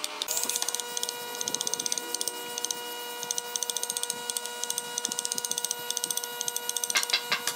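Hand saw cutting into a hardwood block with quick, short strokes. Near the end, sharper knocks begin at about three a second. A steady held tone runs underneath.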